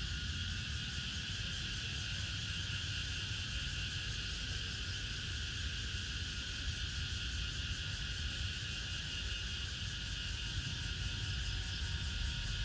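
Steady chorus of insects, with a low rumble underneath.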